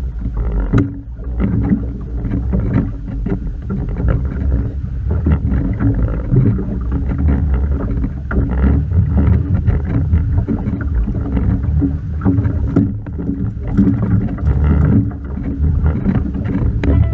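Sounds on board a small fishing boat at sea: a steady low rumble of wind and water against the hull, with frequent knocks and clatter from gear being handled.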